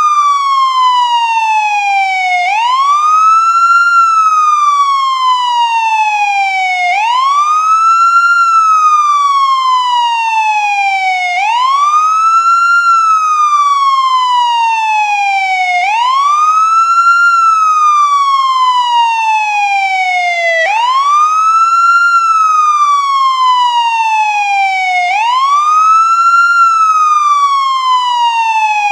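American ambulance siren on its wail tone: the pitch climbs quickly, then slides slowly back down, repeating about every four and a half seconds.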